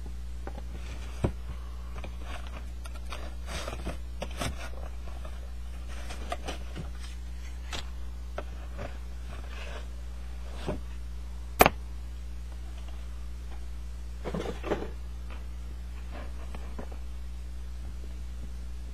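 A cardboard box and a plastic-cased baseball display being handled and unpacked: scattered rustles, clicks and light knocks, with a sharp click about a second in and a louder one about halfway through. A steady low electrical hum runs underneath.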